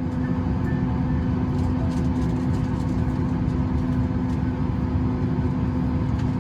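Steady hum inside a Boeing 737 MAX 8 airliner cabin, with a constant low drone and no change in level.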